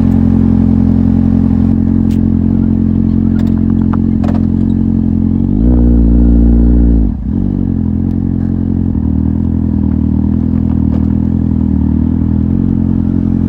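Kawasaki Z750's inline-four running through an Akrapovic exhaust, holding a steady note; about six seconds in it opens up louder for a second or so, then the throttle closes with a brief dip and it settles back to its steady running.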